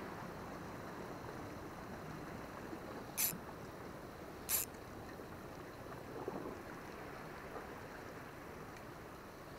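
Steady wash of sea water lapping against a rocky shore, with two brief sharp hisses about a second and a half apart a few seconds in.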